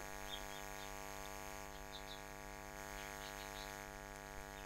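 Steady electrical mains hum with many even overtones, a low constant drone from the recording chain.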